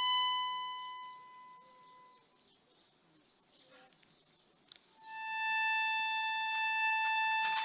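Two long, steady held musical notes. The first is high and fades out over about two seconds. After a near-quiet pause, a second note, slightly lower, comes in about five seconds in and holds.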